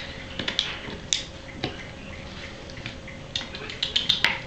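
Rhodesian ridgeback gnawing a rawhide bone: irregular wet clicks and smacks of teeth on rawhide, with a quick run of sharper clicks near the end.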